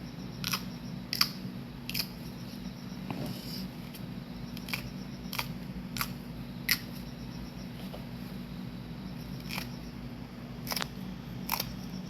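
Cucumber chili peppers being cut in the kitchen: about a dozen sharp, crisp cuts at an uneven pace, with a pause of a few seconds in the middle.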